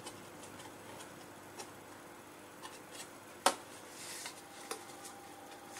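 Faint handling of card and twine on a tabletop, with light rustles and small ticks, and one sharper click about three and a half seconds in.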